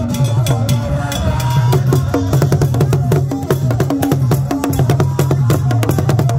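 A pair of large pegged Akan barrel drums, carried on porters' heads and beaten with hooked sticks, playing a fast, dense rhythm that moves between a higher and a lower drum pitch.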